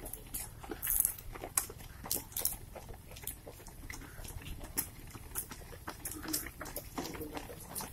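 Running shoes slapping and scuffing on asphalt as a stream of runners passes close by: an irregular patter of footfalls, several a second.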